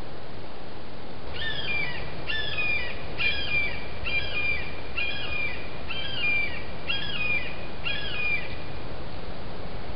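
A bird calling eight times in an even series, a little under one call a second, each call dropping in pitch. Steady background noise runs underneath.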